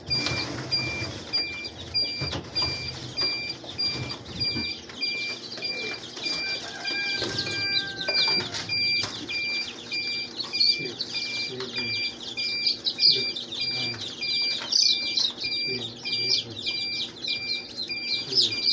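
Many newly hatched Rhode Island Red chicks peeping continuously in rapid, high chirps, with short knocks as the chicks are lifted from the hatcher tray into a plastic crate. A faint electronic beep repeats steadily underneath.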